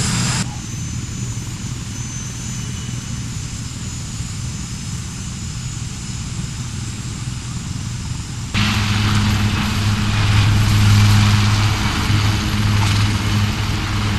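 Aircraft engine noise: a low rumble that changes abruptly a bit over halfway through to a louder, steady drone with a low hum.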